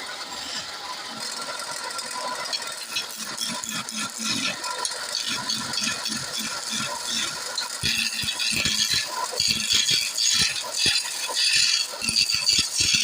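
Wood lathe with a turning tool cutting into the spinning workpiece: an irregular rattling clatter that grows thicker and louder about eight seconds in.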